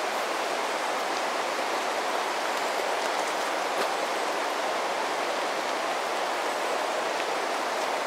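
Steady rushing of a creek: an even, unbroken water noise.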